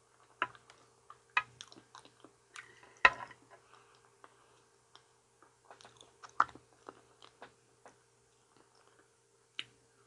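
A person chewing soft banana, with irregular wet mouth clicks and smacks; the loudest come about three seconds in and again about six and a half seconds in.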